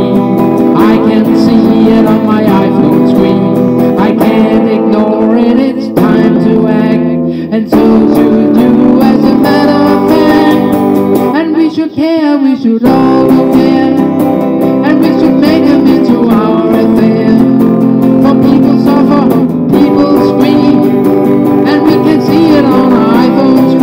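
Electric guitar strummed and picked through a song, with a man's singing voice at times. The playing breaks off briefly about twelve seconds in.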